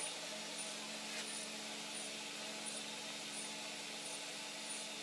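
Cordless electric hair clipper running with a steady buzz as it trims the hair at the side of the head.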